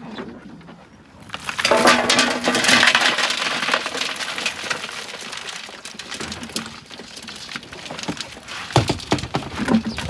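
A haul of fish tipped out of a trap, the fish flapping and splashing in water with a crackling, pattering rush. It starts about a second in, is loudest soon after, and carries on more faintly as the fish keep thrashing.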